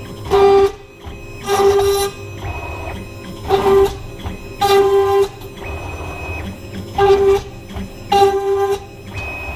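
CNC 6040 router drilling a row of holes in aluminum: the spindle runs steadily while the machine gives six short loud bursts of pitched motor whine with cutting noise as it plunges and moves from hole to hole.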